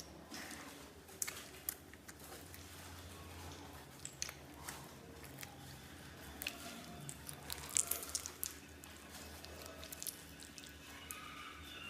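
Slime being squished and kneaded by hand, with scattered sticky clicks and crackles; a run of louder crackles comes about two-thirds of the way through.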